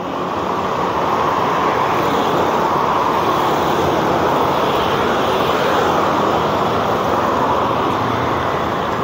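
Street traffic passing close by: a steady rush of car and motor-scooter tyres and engines on the road, swelling slightly about a second in.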